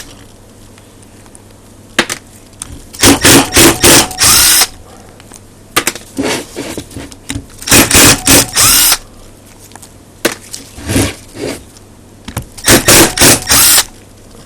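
Cordless power screwdriver backing out the screws of an Emotator 1200 rotator's top housing: three runs of short trigger bursts, each about a second and a half long, the motor whine rising at each start, with quieter clicks between.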